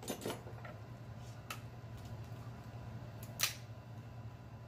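Soft eating clicks and smacks, then one sharp crack about three and a half seconds in as a cooked lobster claw's shell is snapped by hand, over a low steady hum.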